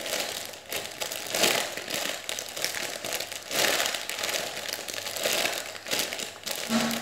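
Clear plastic packaging bag crinkling as hands squeeze a foam squishy toy through it, in uneven swells of rustling, loudest about a second and a half in and again past three and a half seconds.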